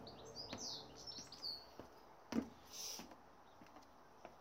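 Feet landing on a plastic aerobic step, a few dull thumps about two seconds apart, the loudest about halfway through, as someone steps up and down. Small birds chirp high and quick in the first second or so.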